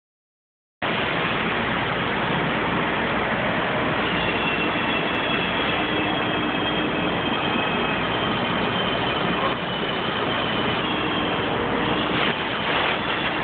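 Metal lathe running as a grooving tool cuts a groove into a long spinning part that has no tailstock support. It makes a steady machine noise, with a faint high whine that comes and goes through the middle.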